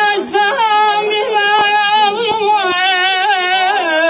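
A man singing an uzun hava, the free-rhythm Turkish folk song, unaccompanied. He holds long high notes and bends them in wavering ornaments.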